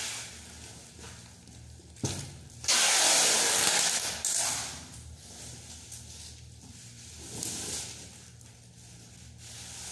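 Packing tape being pulled off its roll and wound around a large cardboard box: a knock about two seconds in, then one loud rasping pull of tape lasting about a second and a half, followed by softer rustling and handling of the box.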